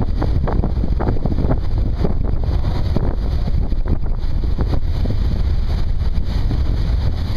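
Wind buffeting the microphone on the open deck of a moving passenger ferry, over the steady low rumble of the boat under way.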